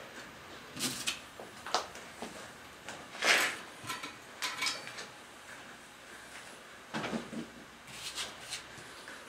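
Irregular clicks, knocks and clinks of hand assembly work: metal hardware and timber parts of a wooden cart being handled and fitted, the loudest knock about three seconds in and a cluster near the end.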